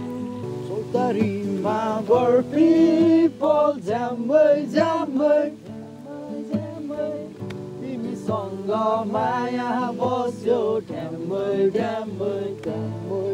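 Background music: a song with a singing voice over held accompaniment.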